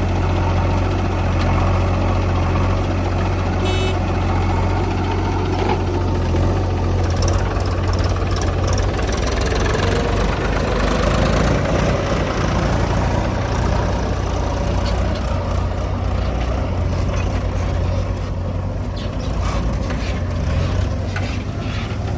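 Heavy diesel engine running steadily with a deep, even rumble; the low engine note changes about seven seconds in.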